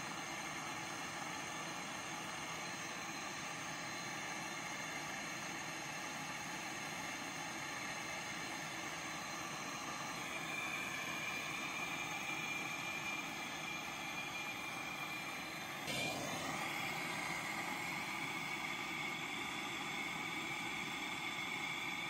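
Handheld propane-cartridge torch burning with a steady hissing flame while brazing a copper refrigerant tube onto a refrigerator compressor. About ten seconds in a steady high whistle joins the hiss, and a brief click comes about sixteen seconds in.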